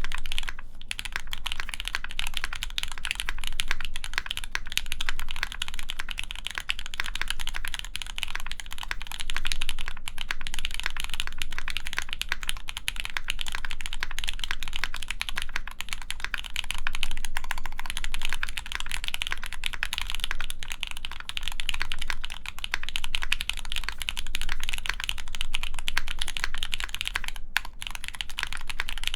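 Continuous fast typing on a mechanical keyboard with lubed Gateron Mizu Mink linear switches, an aluminium plate and GMK keycaps: a dense run of keystroke clacks with brief pauses about a second in and near the end.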